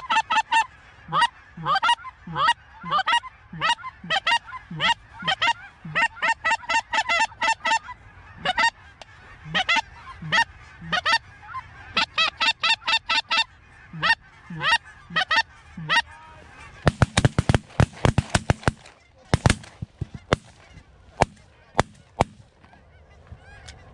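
Geese honking in rapid succession for about sixteen seconds. Then suppressed 12-gauge shotguns fire a volley: many shots packed into about two seconds, followed by a few single shots over the next three seconds.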